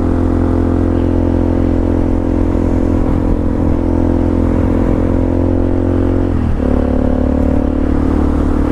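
Supermoto motorcycle engine running steadily while riding. About six and a half seconds in, the engine note drops for a moment, then picks up again at a slightly higher pitch.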